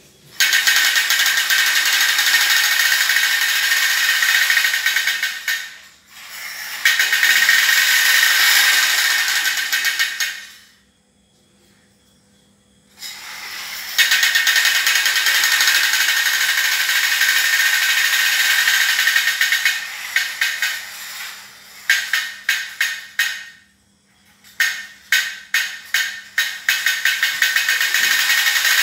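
Small electric motor and plastic gears of a wired-remote toy car whirring in long spells with short breaks. Over the last several seconds it is switched on and off in quick bursts.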